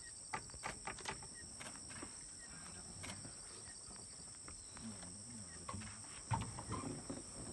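Forest insects chirring steadily at a high pitch, with a few sharp clicks in the first second or so.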